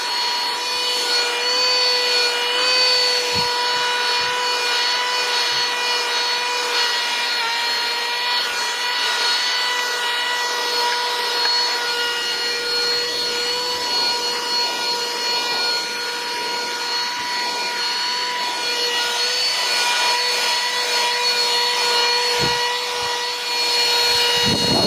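Vacuum cleaner running steadily, a constant high motor whine over rushing air, as it is drawn over a Shiba Inu's fur. A few soft knocks come through now and then.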